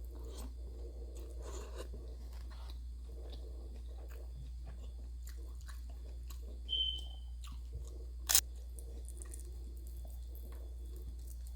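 A person chewing and crunching fried food close to the microphone, over a steady low hum. A short high tone sounds about seven seconds in, and a sharp click just after eight seconds is the loudest sound.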